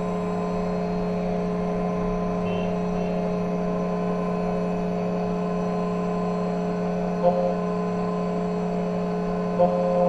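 Xtool KNC91 key cutting machine running with a steady hum, with two short clicks near the end.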